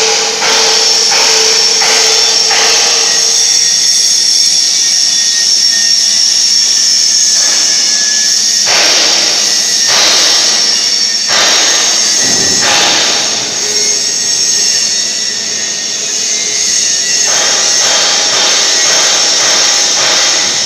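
Loud, steady industrial machine noise: a high hissing whine with stretches of rougher, fuller noise at the start, about nine seconds in, and again near the end.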